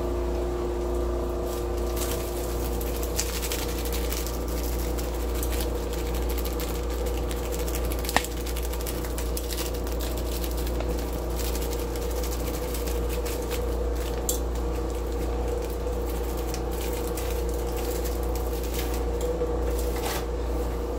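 Steady motor hum of a running kitchen appliance, even and unchanging, with a few light clicks, one sharper tick about eight seconds in.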